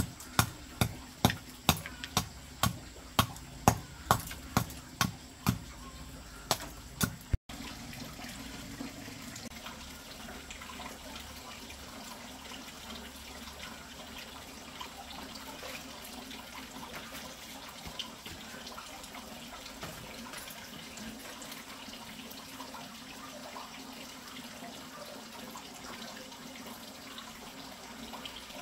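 A dozen or so sharp knocks, about two a second, stop suddenly about seven seconds in. After that, water runs steadily.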